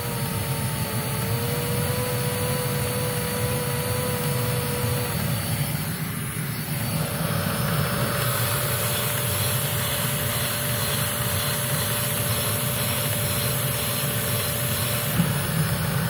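Hoover Z400 upright vacuum cleaner motor running steadily with its brush roll on, giving a steady whine. About halfway through the sound changes to a brighter hiss as the hose end is sealed against a suction gauge.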